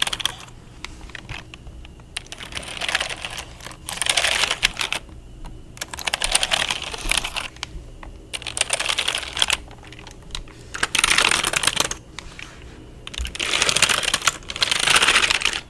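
Computer keyboard keys typed rapidly in about six bursts of a second or so each, with short pauses between.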